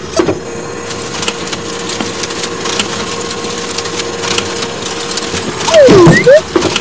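Cartoon claw-machine sound effect: a steady mechanical whirr with a constant hum and dense rapid clicking as the claw carries the egg. About six seconds in comes a loud swooping sound, its pitch sliding down and then back up.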